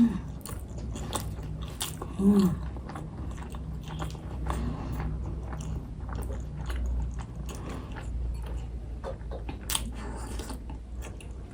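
Close-miked chewing of a large mouthful of momo dumpling: wet mouth clicks and smacks throughout, with a short hummed "mm" about two seconds in.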